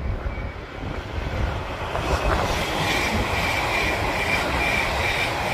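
Avanti West Coast electric express train approaching and passing at speed, a rush of noise that builds over the first two seconds. It then holds with a steady high whine over it. Wind buffets the microphone underneath.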